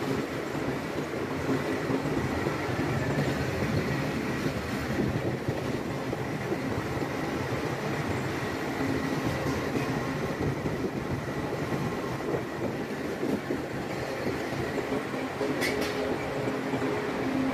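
Heavy cargo-handling machinery running steadily: a dense mechanical rumble with a faint steady whine, and a short metallic knock near the end.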